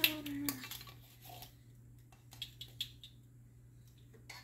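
Plastic measuring spoons on a ring clicking and clattering as they are handled, followed by a few scattered light taps.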